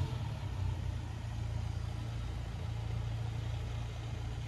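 Motor vehicle engine running steadily at low revs, a continuous low hum.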